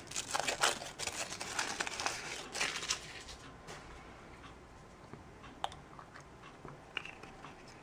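Crinkling and tearing of a surprise egg's wrapper, a dense crackle for the first few seconds, then a few scattered small clicks and taps as the egg is handled.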